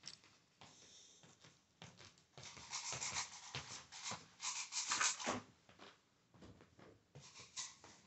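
Rubbing and rustling handling noise close to the microphone, with a run of louder scrapes from about two and a half to five and a half seconds in.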